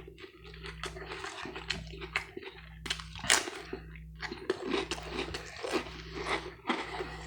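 A person chewing a mouthful of food close to the microphone, with irregular wet crunches, over a steady low hum.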